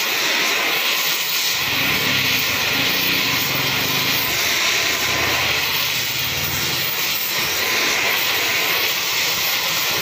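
Gas welding torch burning with a steady hiss, its flame played on a submersible motor rotor while brazing.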